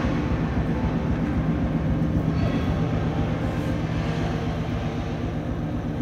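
Electric sewing machine running steadily as it stitches fabric, amplified through the performance sound system: a rapid, even mechanical rattle with a steady low hum beneath.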